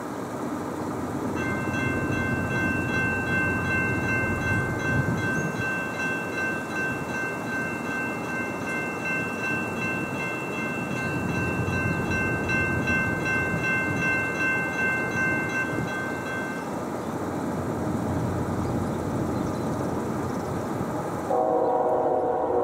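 Locomotive air horn from an approaching train, one long held multi-note chord lasting about fifteen seconds over a steady rumble. Near the end a lower-pitched horn chord starts.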